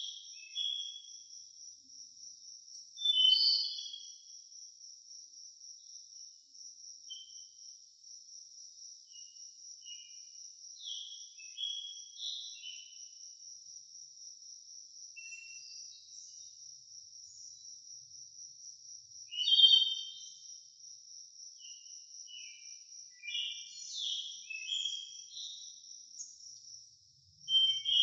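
A steady high-pitched, insect-like trill with short high chirps scattered over it, a few of them louder: about three seconds in, near twenty seconds, and at the very end.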